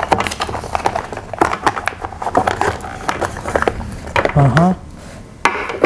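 Cardboard accessory box and its packaging being opened and handled: a string of rustles, clicks and small knocks, with a brief voice sound about four and a half seconds in.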